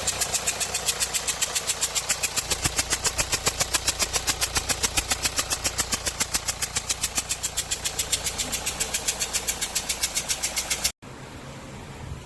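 Hyundai Santa Fe diesel engine running with a sharp, regular ticking of about seven ticks a second, the sign of a soot leak at an injector. About eleven seconds in the sound cuts to a quieter, steady engine hum.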